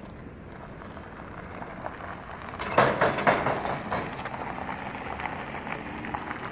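Minivan towing an empty flatbed utility trailer driving over a railroad crossing; the trailer clatters and bangs over the rails about three seconds in, then its tyres roll on.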